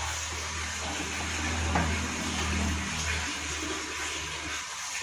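Automatic washing machine with water running out steadily over a low hum, the hum stopping near the end. The fault is water that keeps flowing out of the machine.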